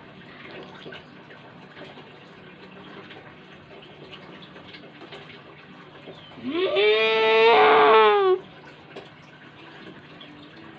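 One long, wavering cry that begins about six and a half seconds in, lasts about two seconds and stops sharply, over a low steady background.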